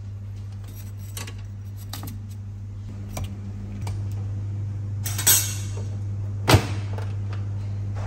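Metal tongs clinking against an air fryer oven's wire rack and a ceramic plate as baked sweet potatoes are lifted out and laid down: a string of light clicks, with two louder clinks in the second half. A steady low hum runs underneath.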